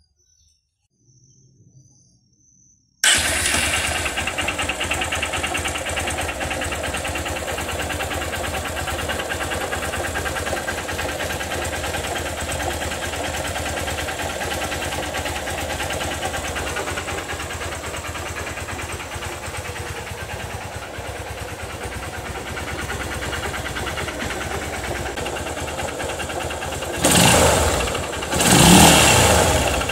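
Honda CG Titan motorcycle's single-cylinder four-stroke engine comes in suddenly about three seconds in and idles steadily, then is revved twice near the end. The owner takes its abnormal noise for a knocking connecting rod.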